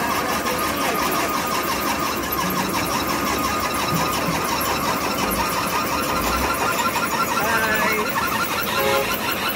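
Concrete batching plant machinery running, with the aggregate belt conveyor going: a loud, steady mechanical din with a thin steady whine.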